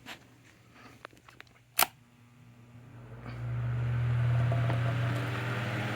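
Holmes Blizzard fan's small C-frame shaded-pole motor starting up on low speed, heard right up against the motor: a sharp click a little under two seconds in, then a low hum that builds over about a second and settles into a steady hum with air rushing from the blades.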